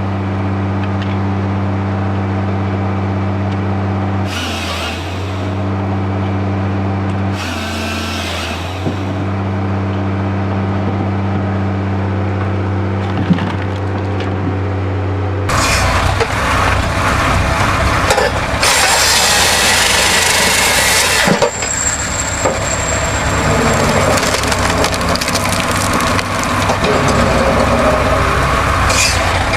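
Engine-driven firewood processing machinery. For the first half an engine runs with a steady drone, broken by two short hissing bursts. About halfway the sound changes suddenly to louder, dense crackling and splintering as wood is cut up by the machine.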